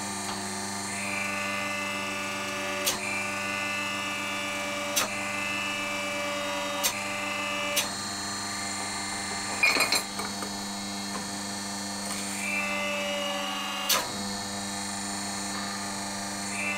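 20-ton hydraulic forging press running: its pump motor hums steadily, and a higher whine comes in twice while it squeezes a red-hot Damascus steel billet. Sharp clicks sound now and then, with a brief rattle midway.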